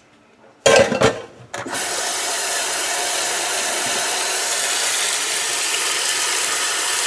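A couple of loud knocks and clatter about a second in, then tap water running steadily into a stainless steel pot in the sink.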